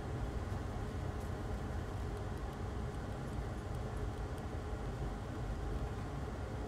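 Steady low background rumble, with a few faint high ticks or crackles between about one and four seconds in.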